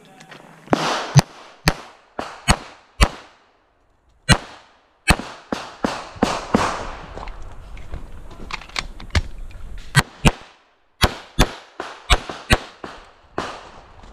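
A .45 ACP Sig Sauer 1911 MAX pistol fired in a long string of well over a dozen shots, in quick pairs and short runs, with two brief breaks.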